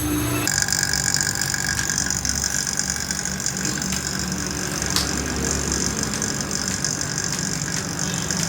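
Window air conditioner running steadily: a mechanical hum with a steady high whine. The sound changes abruptly about half a second in, and a single sharp click comes about five seconds in.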